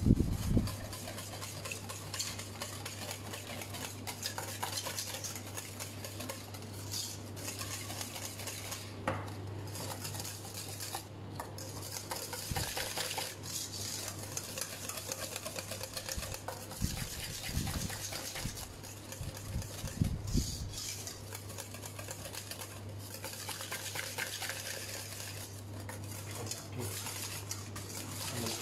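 Wire whisk scraping and clinking steadily round a stainless steel bowl, hand-whisking a thick, still-lumpy batter, with a few low knocks of the bowl against the pan beneath it. A steady low hum runs underneath.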